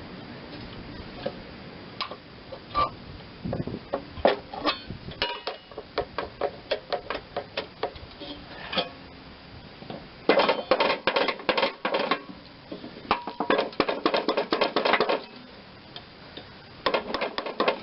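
Small metal-on-metal clicks and taps as a stuck pulley is worked on a mower deck spindle shaft. Scattered single clicks come first, then three quick runs of rapid clicking in the second half.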